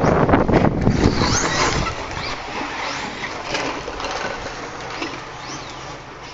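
RC buggies racing on a dirt track: loud tyre-on-dirt and drivetrain noise as a car passes close in the first two seconds, then fainter motor whines that rise and fall as the cars accelerate and brake around the corners.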